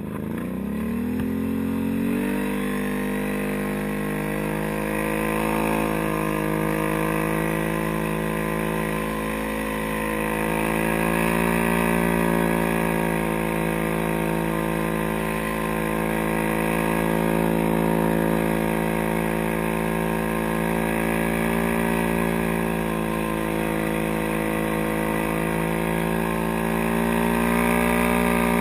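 ATV engine of a track-equipped quad pulling away, its pitch rising over the first two seconds, then running steadily under way with slow small rises and dips in engine speed.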